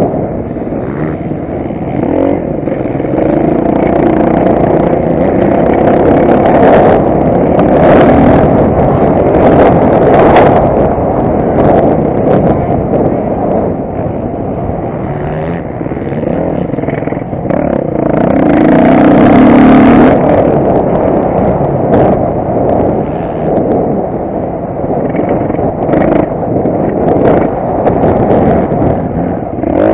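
Motocross motorcycle engine running hard, its pitch rising and falling as the throttle opens and closes, with frequent clattering knocks. The engine is loudest at about two-thirds of the way through.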